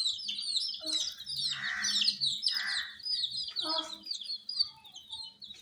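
A group of baby chicks peeping continuously: many short, high, downward-sliding peeps overlapping one another, with a few short, lower sounds mixed in around the middle.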